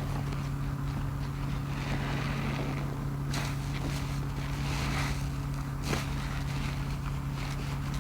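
Wet grout sponges being squeezed and rinsed in sudsy water: a swell of squishing and splashing about every three seconds, with a few short sharp sounds, over a steady low hum.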